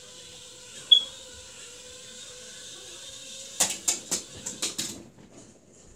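Small remote-control flying toy's motors and propellers whirring steadily, with a short sharp high chirp about a second in. A quick run of knocks follows between three and a half and five seconds in, and then the whirring stops.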